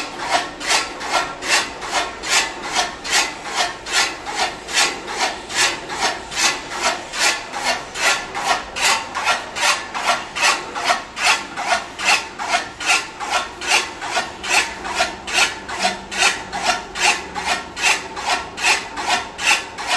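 A toka (chaff cutter) running: the curved blades on its spinning flywheel sweep past the cutting head in an even, rasping swish about two and a half times a second.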